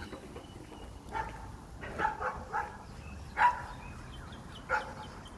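A dog giving about six short, high-pitched barks, the loudest about three and a half seconds in.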